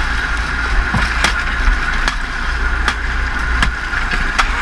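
Boat engine running steadily at sea, with scattered sharp knocks and clicks from about a second in.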